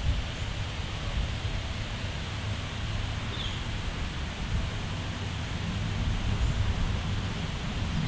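Steady outdoor background noise with a low rumble, and one faint, short bird chirp sliding downward about three and a half seconds in.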